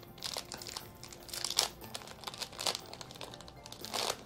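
Snack wrapper crinkling and tearing as it is pulled open by hand, in several rustling bursts; the loudest come about a second and a half in, near the three-second mark and just before the end.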